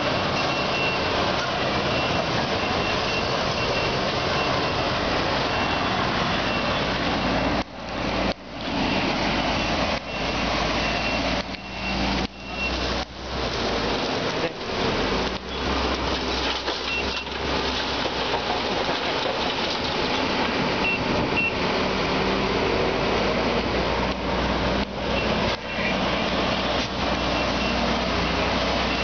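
Lonking CDM6365H excavator's Cummins diesel engine running under load as the bucket digs in a rushing river, the engine and the water making a steady loud din. A reversing beeper sounds repeatedly over it during the first several seconds.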